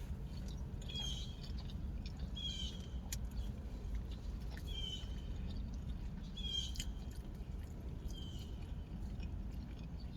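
A short, high chirp repeats about every second and a half to two seconds, five times, over a steady low rumble.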